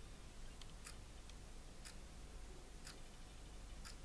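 Faint, regular ticking about once a second, like a clock, over a low steady room hum.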